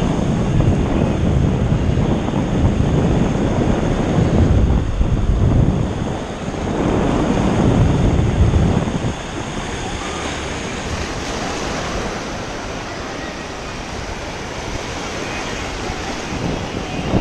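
Ocean surf washing up over wet sand around the microphone, with wind buffeting it. It is heaviest for about the first nine seconds, then steadier and softer.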